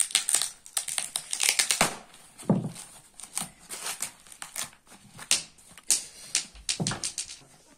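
White foam packing wrap and packing tape being slit with a knife and pulled open by hand: a run of irregular crackles and rustles.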